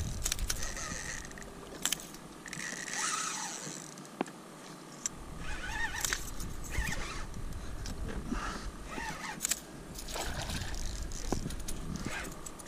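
Quiet, scattered clicks, knocks and scrapes of fishing gear being handled in a plastic kayak.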